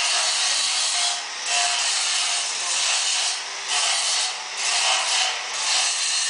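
Steady harsh rasping, scraping noise that eases off briefly about once a second.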